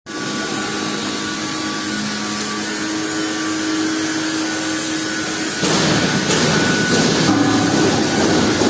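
Argon (TIG) welding on stainless steel sheet: a steady buzzing hiss with a faint hum, becoming louder and rougher about five and a half seconds in.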